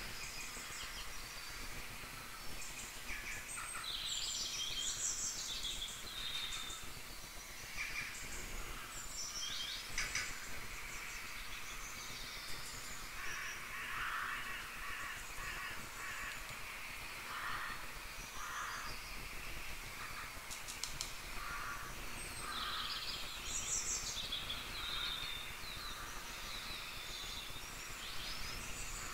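Faint birds chirping and calling on and off, short repeated notes and quick glides, over a low steady background noise.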